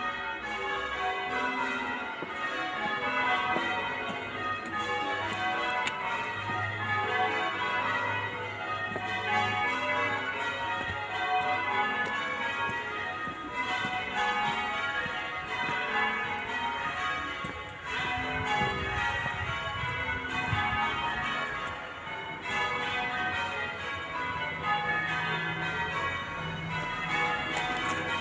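Church tower bells rung in changes, a Surprise Major method on eight bells: a continuous, evenly paced run of bell strikes, each bell in turn, the order shifting from row to row.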